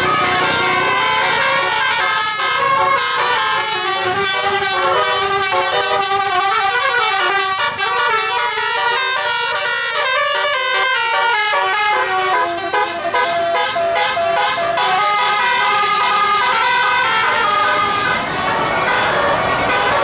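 Bus 'telolet' musical air horns playing a fast tune of short notes that jump from pitch to pitch several times a second, sounding without a break.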